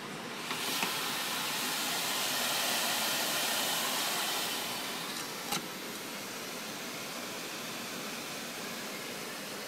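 Laser marking workstation running a marking cycle: small knocks as the workpiece drawer is pushed shut, then an even hiss lasting about four and a half seconds, ended by a sharp click.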